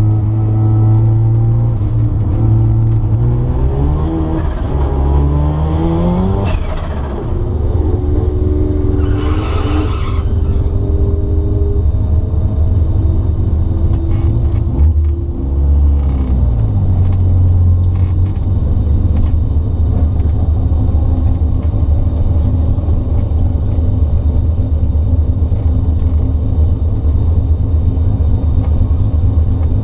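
Mazda 13B turbo rotary engine of a 1972 RX2, heard from inside the cabin, revving up a few seconds in and dropping back, then settling into a steady idle for the second half.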